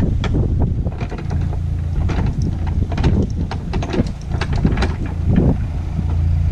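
Narrowboat engine running with a steady low hum, while the ratchet of a lock paddle gear clicks irregularly as it is wound with a windlass, the clicks thickest in the middle.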